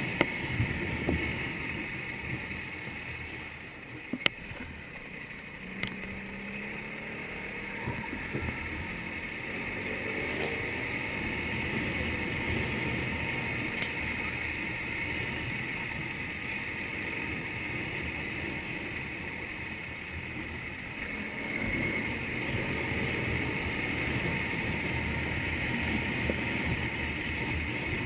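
Running engine and road noise of a vehicle driving along a street, heard from on board. The engine note rises briefly twice as it speeds up.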